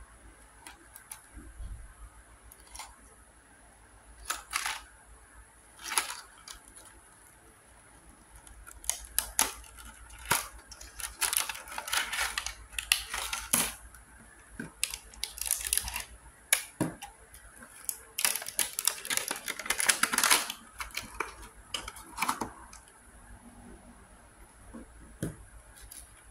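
Unboxing handling sounds: a cardboard box and a clear plastic blister tray being handled, with scattered sharp clicks. Dense crackling and clicking come in the middle stretch as the small puzzle cube is pried out of the tray.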